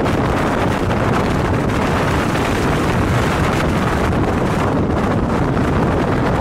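Strong wind buffeting the microphone: a steady, loud rush of noise, heaviest in the low end, with no let-up.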